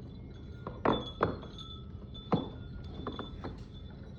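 Wind chime by the door clinking in gusty wind: a handful of sharp strikes spread over a few seconds, each leaving ringing tones that hang on, over a steady low wind noise.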